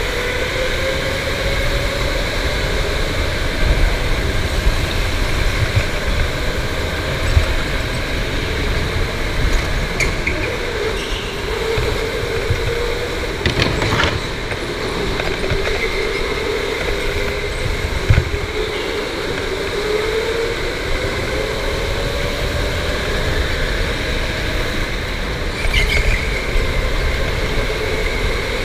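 Electric go-kart's motor whine rising and falling in pitch as the kart speeds up and slows through the corners, over a low rumble from the kart on the concrete track. A few short sharp knocks, the strongest about halfway through.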